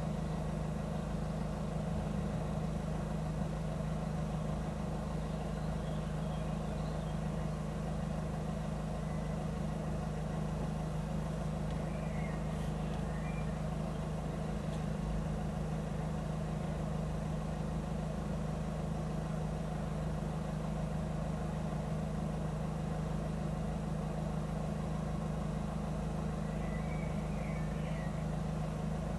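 A road vehicle's engine idling, a steady low hum, with a few faint bird chirps now and then.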